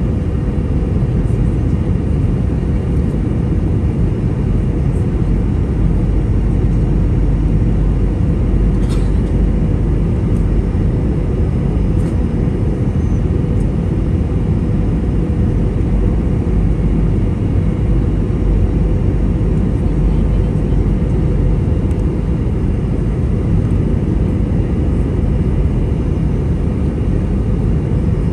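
Airbus A320 passenger cabin in flight: a loud, steady rumble of engine and airflow noise with a constant low hum running through it, and one faint click about nine seconds in.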